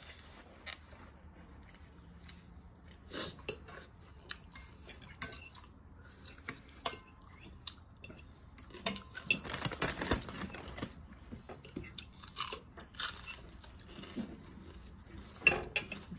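A metal spoon clinking and scraping against a plate in scattered sharp clicks, with close chewing of a mouthful of cucumber salad in between, busiest about two-thirds of the way through.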